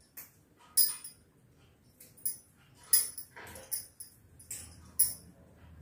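Glass bangles on the wrists clinking together in about six short, irregular jingles as hands pluck mint leaves from their stems.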